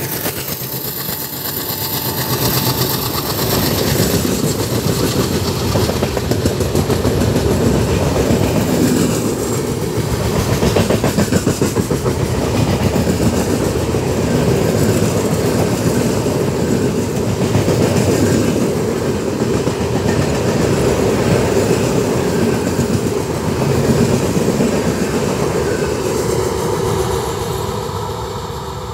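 Express train running through at speed behind twin WDG3A Alco diesel locomotives, its passenger coaches' wheels clattering rapidly over the rail joints. The clatter is steady and loud, then fades near the end as the tail of the train moves away.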